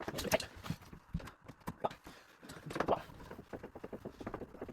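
Irregular knocks, clicks and clatter of hands and tools working on an electric shower unit, with a few louder knocks near the start and about three seconds in.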